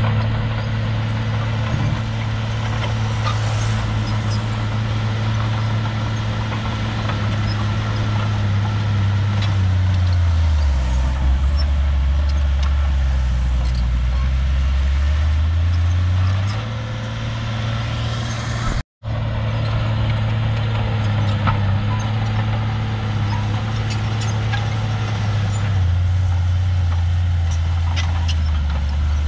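Diesel engine of a small Shantui crawler bulldozer running steadily. Its engine speed dips for several seconds, then rises again, and it dips once more near the end. The sound cuts out for an instant just after halfway.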